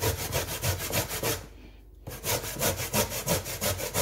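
Raw sweet potato being grated by hand on a metal grater, in quick even rasping strokes about five a second. About one and a half seconds in, the strokes stop for half a second, then resume.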